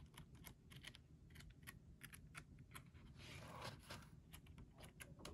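Faint page flicks as the paper pages of a planner are flipped through, a run of short soft clicks with a brief rustle about three seconds in.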